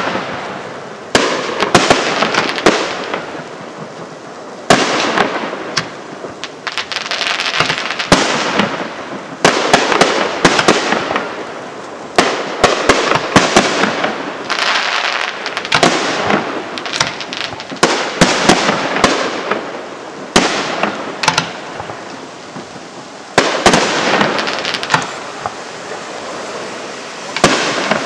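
Aerial firework shells bursting one after another, a dozen or so sharp bangs, each followed by a second or two of dense crackling.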